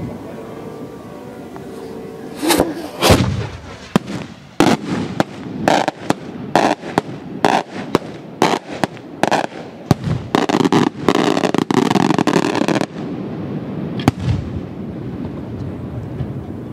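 Maltese beraq aerial shells going off in a rapid barrage of sharp, loud bangs, about two to three a second for some ten seconds, with the reports running together near the end, then one last single bang.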